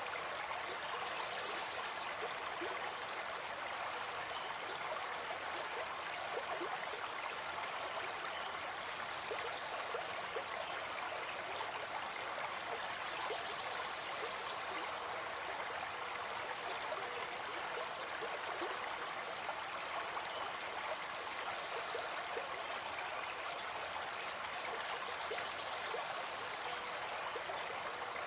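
Stream of water flowing steadily, a continuous babbling rush with small trickling splashes through it.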